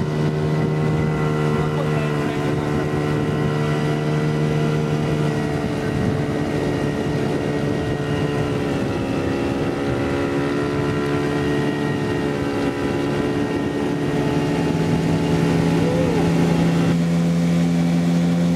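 Small outboard motor on an inflatable boat running steadily under way, a constant engine note; the note changes abruptly about seventeen seconds in.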